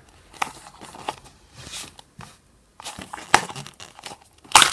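Plastic crinkling and rustling as a red plastic gachapon capsule is handled and worked open. It comes in scattered crackles with a short pause in the middle, then a sharp, louder snap near the end.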